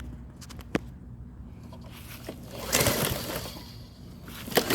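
Troy-Bilt walk-behind mower's recoil starter pulled twice, the engine turning over without firing: the spark plug wire is disconnected.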